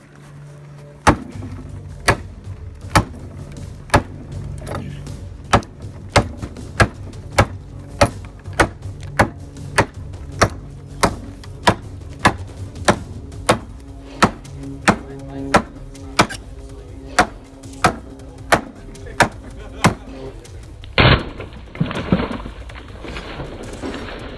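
Hammer blows on hot steel at an anvil during hand forging, evenly paced at about three strikes every two seconds, each a sharp ringing hit, over a steady low hum. Near the end a louder, rougher burst breaks the rhythm.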